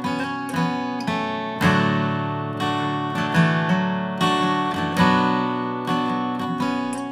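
Background music of an acoustic guitar strumming and plucking chords, each stroke ringing out and fading before the next.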